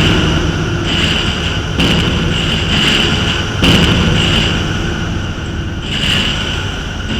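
Loud industrial noise drone: a dense, rumbling low bed with a ringing high band. Booming hits recur roughly every two seconds.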